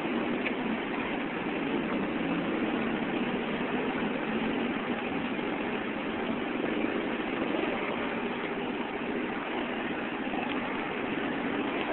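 Steady drone of motorcycle engines idling in jammed city traffic stopped at a red light, with no single sound standing out.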